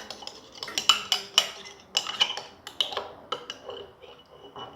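A spoon clinking and scraping irregularly against a bowl while stirring a slime mixture.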